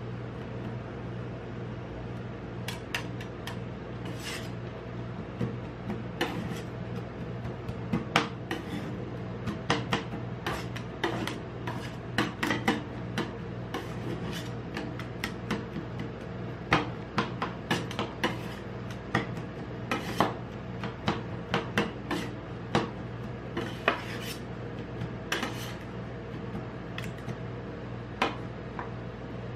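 Two metal spatulas chopping and scraping chocolate into ice cream base on a chilled steel plate: irregular sharp clacks of the blades striking the plate, few at first and then quick and dense, with scraping between strokes. A steady low hum runs underneath.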